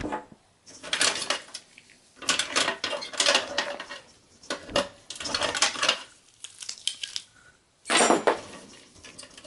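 Light metallic clicks and rattles from handling the steel case and parts of a desktop computer during disassembly, in several short clusters, the loudest about eight seconds in.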